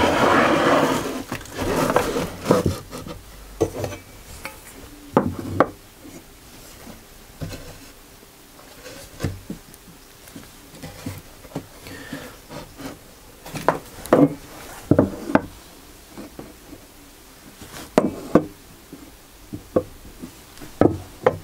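Wooden router-fence parts being shifted and knocked about on a router table: a scraping rub of wood sliding in the first second or so, then scattered knocks and taps as the fence is eased toward square.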